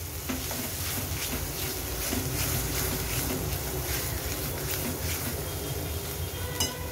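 Ground spice paste frying in oil in a stainless steel kadhai, with a metal spoon stirring and scraping it around the pan, over a steady low rumble.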